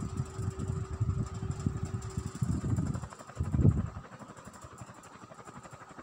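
Restored vintage Ralli ceiling fan running, with an uneven low rumble that drops away about four seconds in, over a faint steady hum.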